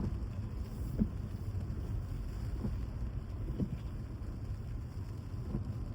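Steady low rumble of a vehicle moving along a wet road, with a few faint short blips over it.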